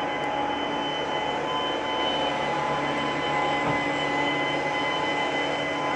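A steady mechanical drone: an even rushing noise with several high, steady whining tones held over it.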